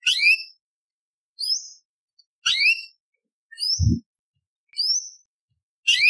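Orange-bellied leafbird calling in short, sharp upward-sweeping phrases, about one a second, six in all. A low thump sounds near the middle.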